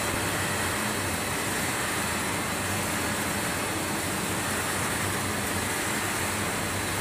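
Steady mechanical whirring noise of a commercial popcorn production line running, with a faint steady high whine.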